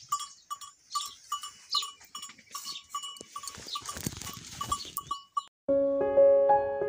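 Milk squirting into a steel pot as a goat is milked by hand: a quick, even series of squirts, about three a second, each with a short metallic ring. Piano background music cuts in near the end.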